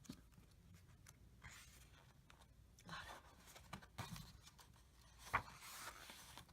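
Near silence with faint rustling and light taps as the album's packaging is handled, and one sharp click about five seconds in.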